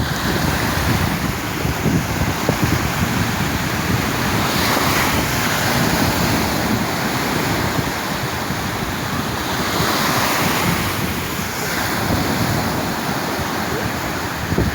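Sea waves washing onto the shore, the surf swelling and fading every few seconds, with wind buffeting the microphone in a low rumble.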